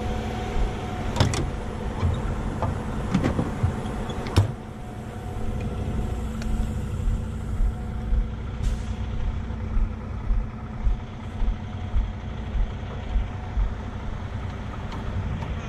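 Heavy rotator wrecker's diesel engine running steadily, with a few sharp clicks in the first few seconds and regular low thumps through the second half.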